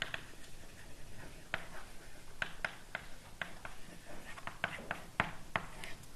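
Writing on a board during a lecture: a string of short, irregular taps and scratches, several a second.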